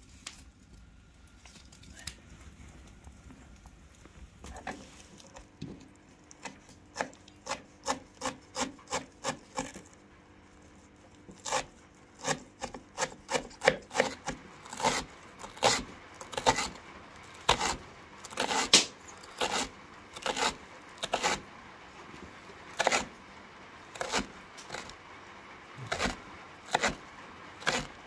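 A knife chopping fresh herbs on a wooden cutting board: sharp knocks of the blade on the wood, about two a second, in runs with short pauses, starting about five seconds in.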